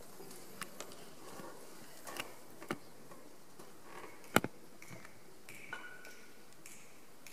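A quiet pause with no music: faint room tone broken by scattered small clicks and taps, the loudest a sharp tap about four seconds in.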